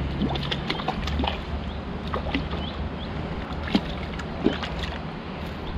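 Small irregular water splashes and clicks as a hooked rainbow trout is played and brought in to the bank, over a steady low rumble of wind on the microphone.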